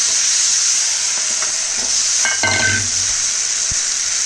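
Tomato paste sizzling loudly as it fries in hot oil with onions and ginger-garlic paste in a kadai, stirred with a spoon that scrapes the pan, with a brief squeaky scrape a little past halfway.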